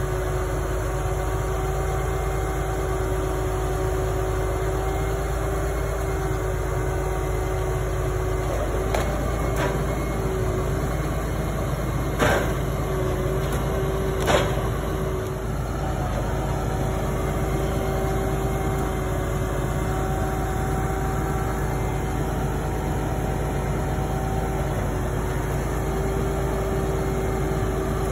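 Engine running steadily to power the hydraulics of a forestry trailer's log-loading crane, with a steady hydraulic whine that wavers briefly as the crane works. Two sharp knocks stand out about twelve and fourteen seconds in.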